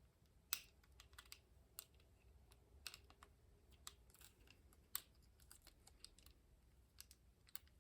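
Faint, irregular small clicks and taps of a cordless phone handset and its battery pack being handled.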